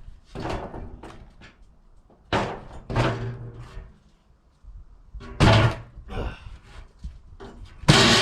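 A run of sudden metal clanks and bangs, each with a short ring, as metal stock is handled and struck while a furnace box is built. The loudest bang comes near the end.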